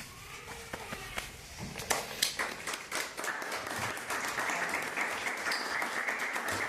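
Audience applauding, beginning with a few scattered claps and swelling into full steady applause within about three seconds.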